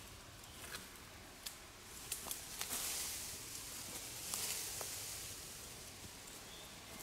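Leaves and branches rustling, with scattered light snaps and clicks; the rustle swells in the middle.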